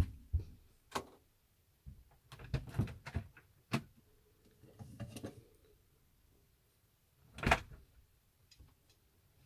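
Motorhome fridge door being opened and items handled inside: a string of clicks, knocks and rattles, then a louder thud about seven and a half seconds in as the door is shut.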